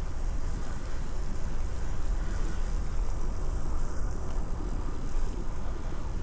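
Bicycle being ridden: steady rolling noise with a heavy low rumble of wind on the microphone.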